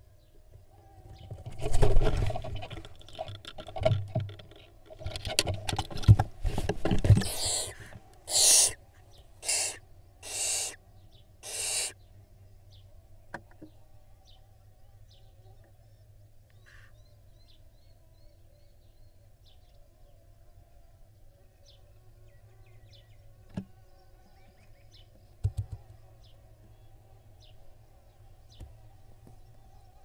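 Barn owl fledgling flapping and thumping its way into a wooden nest box. It then gives four harsh hissing screeches about a second apart, and later makes a couple of soft thumps as it shifts about.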